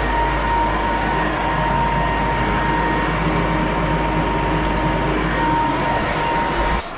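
Electric floor sander running steadily on a hardwood floor, a loud even grinding with a constant high motor whine; it cuts off sharply near the end.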